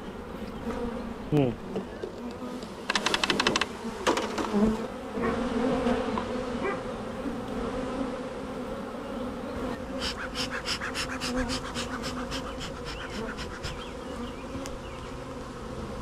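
Steady buzzing hum of many honeybees flying around a freshly hived colony, agitated after being disturbed. Brief runs of rapid clicking come about three seconds in and again from about ten seconds in.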